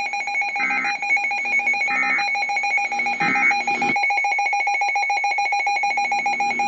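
Weather radio tone alarm: a steady, high electronic tone with a fast pulsing texture. Three short brighter beeps come about a second and a half apart in the first four seconds.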